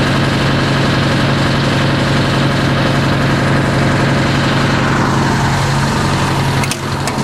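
Fire engine idling, heard from inside its cab: a steady low hum with a fast, even pulse. Near the end there are a few sharp clicks.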